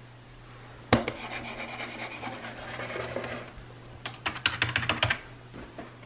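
A sharp click, then about two seconds of rubbing and scraping, then a quick run of small clicks, over a steady low hum.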